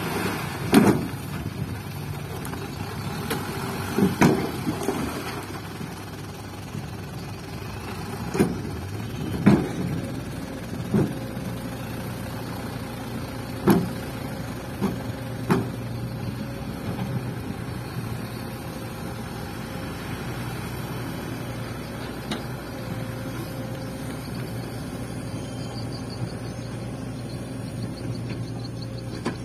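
A small dump truck's engine running steadily while its tipped bed is emptied and lowered, with several loud knocks and clunks over the first half. The engine then keeps running as the truck pulls away.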